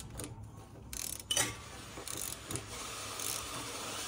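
Wrench ratcheting on oil pan bolts, a few sharp clicks with the loudest about a second and a half in, followed by a fainter steady hiss.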